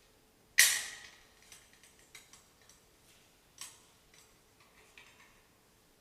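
Metal clicks and clinks from a gilded monstrance being opened and its lunette holding the host lifted out. One sharp clink with a brief ring comes about half a second in, followed by a few lighter clicks.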